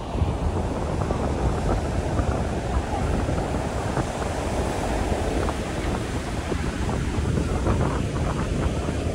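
Wind buffeting the microphone over the steady rush of Atlantic Ocean surf.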